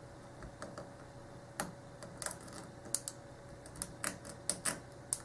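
Irregular sharp clicks of a lock pick lifting the serrated pins of a Schlage 851226 padlock under tension, the serrations clicking as each pin is pushed up. A faint steady hum sits underneath.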